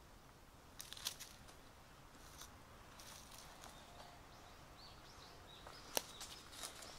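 Footsteps crunching on dry leaf litter and debris, a few scattered steps with the sharpest about a second in and near six seconds. Faint short bird chirps in the middle.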